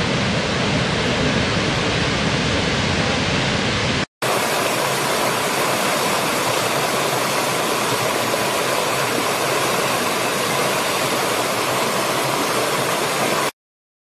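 Steady rush of falling water from a large waterfall. It breaks off about four seconds in, then gives way to the brighter rush of a small stream cascading over rocks, which cuts off suddenly near the end.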